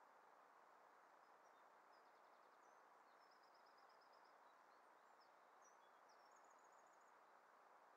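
Near silence with a steady faint hiss, over which small birds call faintly: scattered short high chirps and three quick trills of rapidly repeated notes.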